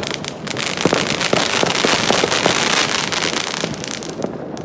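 Fireworks crackling: a dense run of rapid sharp pops and cracks, thickest in the middle and thinning toward the end.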